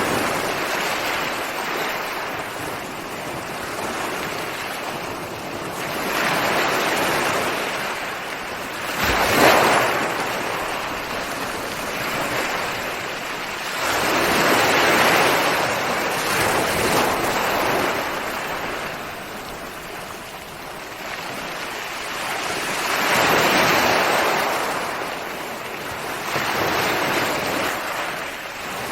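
Ocean waves breaking on the shore in a continuous wash that swells and ebbs every several seconds. About a third of the way in there is a single sharp, loud crash.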